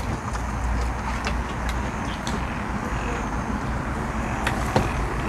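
A steady low rumble with a few sharp small clicks and taps over it. The loudest click comes nearly five seconds in.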